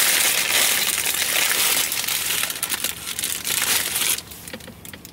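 Paper bakery bag crinkling and rustling as it is handled and opened. The crackling stops about four seconds in.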